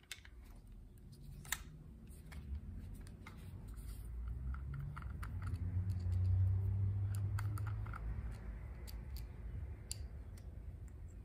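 Small metal-on-metal clicks and scrapes as a Phillips screwdriver backs the choke butterfly screws out of a carburetor and the loose parts are handled. A low hum swells up in the middle and fades again.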